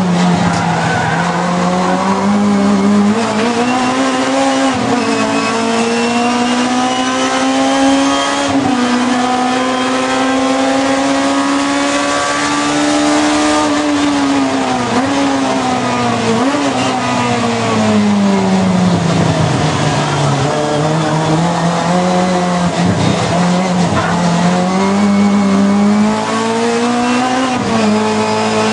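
Honda race car engine heard from inside the cockpit, running hard through a lap. Its note climbs and falls slowly as it accelerates and slows for corners, with a few sudden dips at gear changes.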